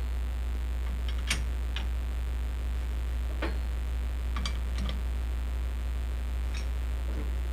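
Scattered light clicks and taps, about seven in all, from handling a workpiece in a lathe chuck while it is checked for runout with a dial indicator. A steady low hum runs underneath.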